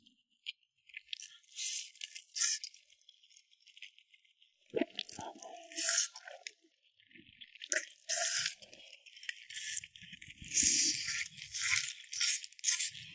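Close-miked eating sounds: crispy fried food being bitten and chewed, with irregular crackly crunches that come thicker from about halfway through.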